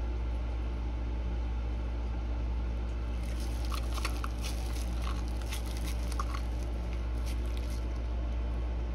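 Faint sticky squishing and crackling of thick epoxy resin being scraped out of a mixing cup into a mold, starting about three seconds in and fading near the end, over a steady low hum.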